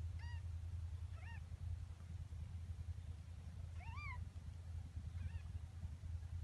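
Newborn kittens giving four short, high-pitched squeaky mews while nursing, the loudest about four seconds in, over a low steady rumble.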